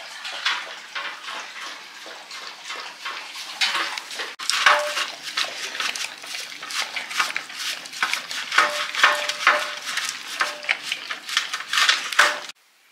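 Kitchen clatter: dishes and utensils handled, with many irregular clicks, knocks and scrapes.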